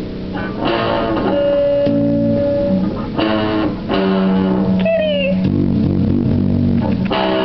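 Electric guitar being played: strummed chords about a second, three seconds and seven seconds in, with held notes ringing between them and a short sliding note near the middle.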